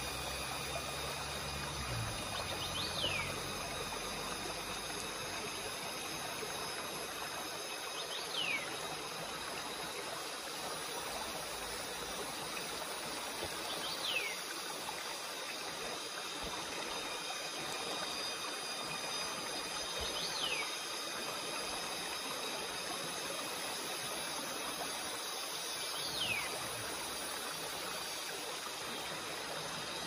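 Mountain stream flowing steadily. A short high chirp that falls in pitch repeats about every six seconds over it.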